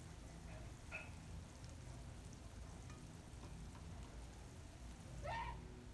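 Sliced onions frying gently in oil in a kadai, a faint soft sizzle over a low hum, as the onions are browned with bay leaves and cinnamon. A light click comes about a second in, and a short rising squeak near the end.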